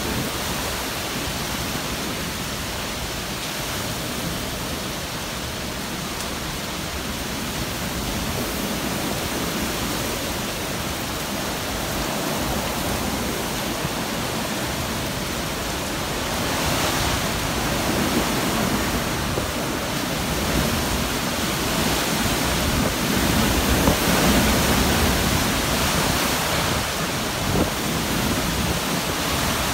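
Hurricane-force wind rushing through trees and shrubs, a loud steady rushing that swells into stronger gusts from about halfway through.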